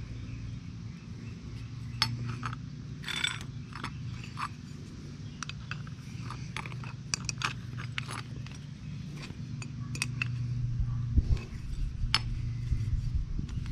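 Scattered sharp metal clicks and clinks of small air fittings and hand tools being handled and screwed into an air-ride suspension leveling valve, over a steady low hum.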